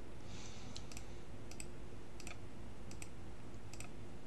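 Faint, irregular clicking at a computer, about eight clicks spread unevenly, over a steady low hum.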